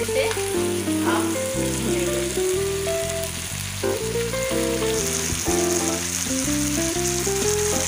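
Chicken and potatoes sizzling as they fry in oil and spice paste in a wok, stirred now and then with a spatula, under background music with held notes that step from one to the next.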